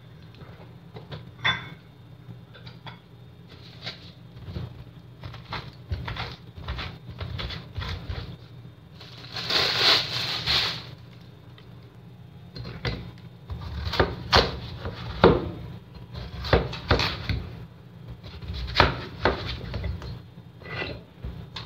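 Kitchen handling sounds: scattered knocks, clicks and clatter of cookware and utensils, growing busier in the second half, with a brief rushing noise about ten seconds in.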